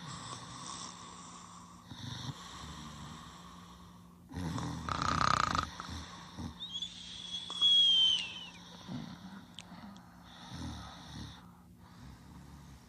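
Cartoon snoring: a series of snores, the loudest a long one about four seconds in. A high whistle that falls in pitch at its end follows about seven seconds in, over a steady low hum.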